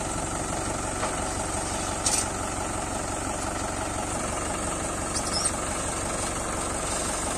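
Mahindra 575 DI tractor's four-cylinder diesel engine running steadily at a low, even beat, with a couple of brief sharp noises about two and five seconds in.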